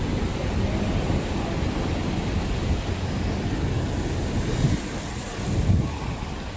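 Steady low outdoor rumble of distant city traffic and wind on the microphone, with two brief louder swells about five and six seconds in.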